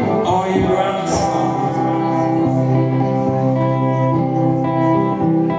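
Live band music: a voice singing into a microphone over electric guitar, with a long held low note through the middle.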